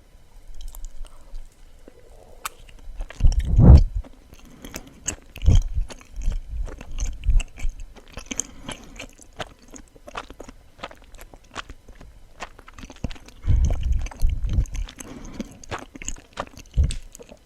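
Close-miked chewing of suama, a soft, chewy Japanese rice-cake sweet, with many small mouth clicks. Low thumps stand out twice, about three seconds in and again near the end.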